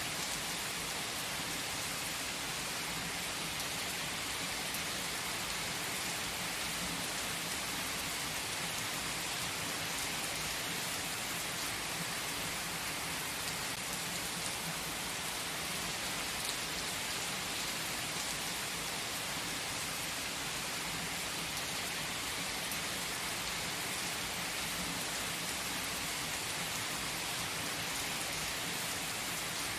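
Steady rain falling, an even hiss that stays the same throughout.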